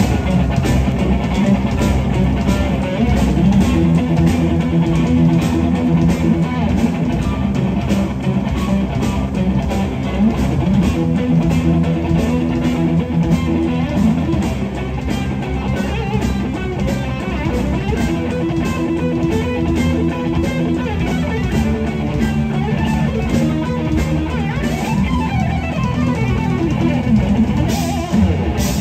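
Electric guitar playing a repeating riff sequence live, with a band's drums keeping a steady beat behind it.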